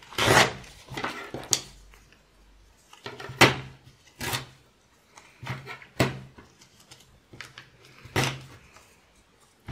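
Sheet of music paper being handled on a craft table: about six short, crisp rustles and taps, a second or so apart, with quiet gaps between.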